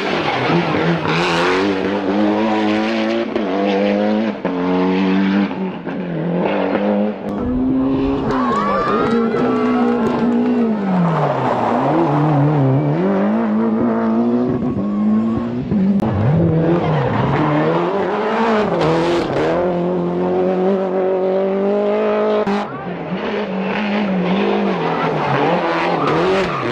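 Turbocharged two-litre four-cylinder Group A rally cars (Mitsubishi Lancer Evolution, Ford Escort RS Cosworth, Toyota Celica GT-Four) driven flat out one after another, each engine revving hard. The revs climb and then drop steeply again and again through gear changes and braking for corners.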